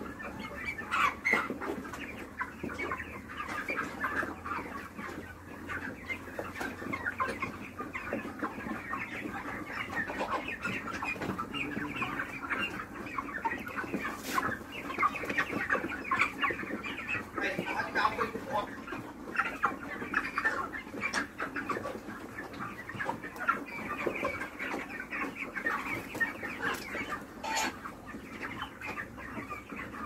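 A large flock of white broiler chickens clucking and chirping all at once, a dense, continuous chatter with a few louder calls standing out now and then.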